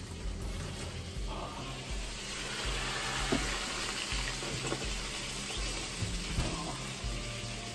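Aluminium foil crinkling and rustling as it is pulled off a baking tray and crumpled by hand, with a thud of the oven door shutting about six seconds in.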